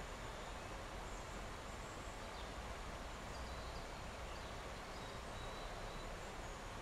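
Steady outdoor background noise with faint, short high chirps scattered through it and a thin, steady high tone above them, typical of birds and insects.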